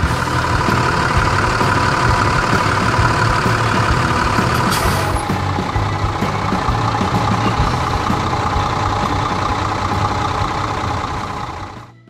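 Heavy vehicle engine sound effect running steadily, with a brief hiss of air about five seconds in. It fades out at the very end.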